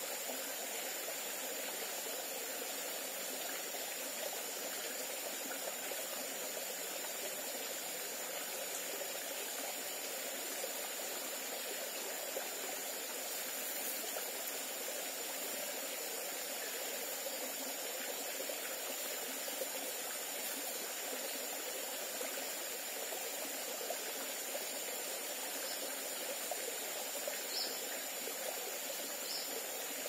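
A small rocky forest stream trickling and splashing over stones into a pool, a steady even rush of water. A thin high steady tone sits over it, and a few faint short chirps come near the end.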